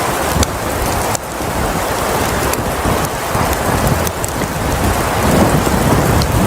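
Blizzard storm noise: a loud, steady rushing of wind and blowing snow, with a few sharp clicks along the way.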